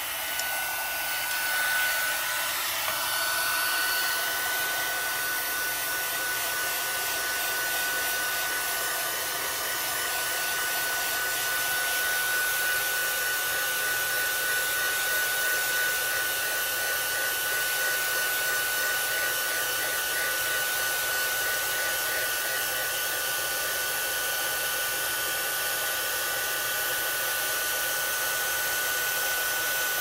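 Craft embossing heat tool running, blowing hot air with a steady rush and a thin steady high whine, heating clear glitter embossing powder on a stamped card so it melts.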